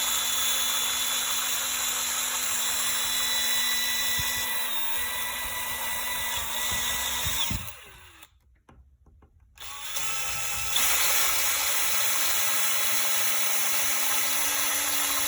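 Small electric drill running steadily as it drills out a broken plastic shutter clip with a small bit. The motor slows and stops about seven and a half seconds in, goes quiet for about two seconds, then starts up again and runs on.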